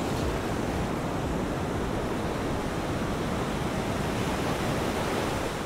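Ocean surf washing steadily, a continuous rush of waves with no separate breaks standing out.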